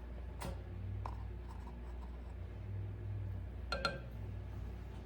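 A few light clinks of a measuring spoon against the sauce bowl, the loudest a little before four seconds in, over a steady low hum.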